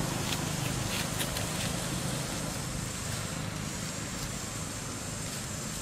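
Steady outdoor background noise with a low motor hum that fades out about two seconds in, and a few faint ticks near the start.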